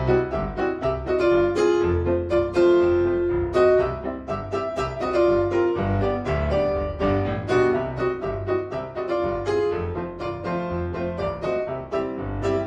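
Background music: quick keyboard notes over a bass line.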